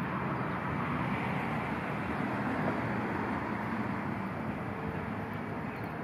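Steady, unbroken background of city traffic noise.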